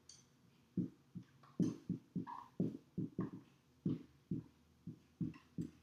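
Marker writing on a whiteboard: a run of short, irregular taps and strokes, about two to three a second, with a brief higher squeak about two seconds in.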